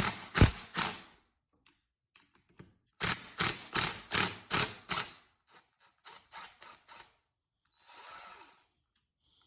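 Hand tool working loose the fasteners that hold the electric motor to a GM rear air suspension compressor housing: a run of sharp metal clicks, about three a second, for a couple of seconds, then fainter scattered clicks and a short scrape near the end.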